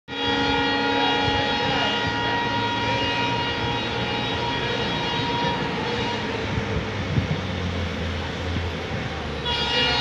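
An ALCo WDM-3A diesel locomotive sounding its horn in one long steady blast that comes back strong near the end, with the low rumble of its engine underneath growing as it approaches.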